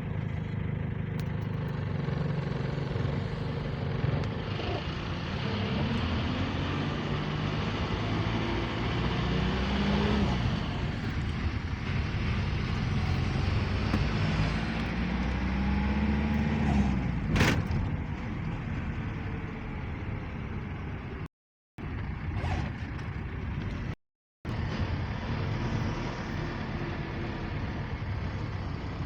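Motor vehicle driving: steady engine and road noise, with the engine pitch rising and falling twice as it accelerates and eases off. There is a single sharp knock about two-thirds of the way through, and the sound cuts out completely for a moment twice near the end.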